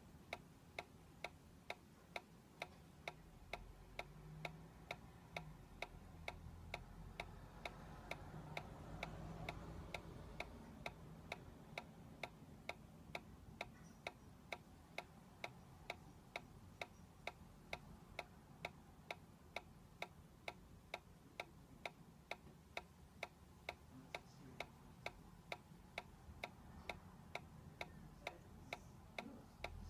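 Solar-powered dancing cactus toy ticking faintly and evenly, about two clicks a second, as its small electromagnetic drive kicks the swinging body.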